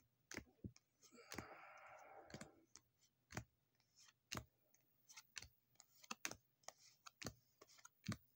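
Cardboard game cards being taken one at a time off a hand-held deck and laid onto a pile: quiet, irregular light clicks and taps, with a short sliding rustle about a second in.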